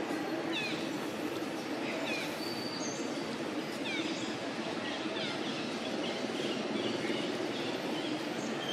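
Bird chirps, short and high, each falling in pitch, repeated every second or two over a steady outdoor background hiss.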